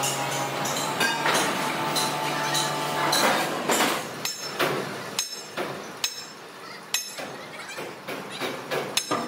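Hammer blows on metal: a run of sharp, ringing strikes about every half second to a second, over a steady low machine hum that fades out a few seconds in.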